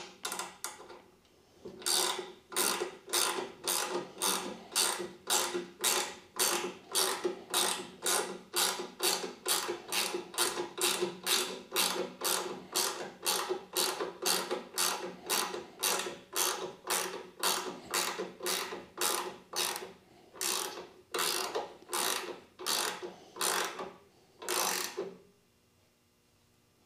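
Ratcheting wrench turning a bolt on a CNC fourth-axis mounting bracket, clicking in quick, even strokes about twice a second. This is the height-adjustment and lock-nut work that sets the fourth axis level with the bed.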